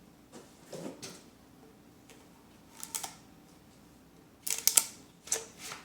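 Loose sheets of paper being handled: a few short rustles and crinkles, the loudest cluster of them near the end.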